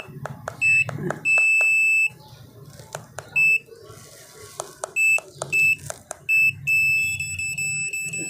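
Satellite finder meter's buzzer beeping at one high pitch in irregular short and long beeps, then holding a nearly continuous tone near the end, the meter signalling that it is picking up satellite signal from the dish. A few sharp clicks are heard among the beeps.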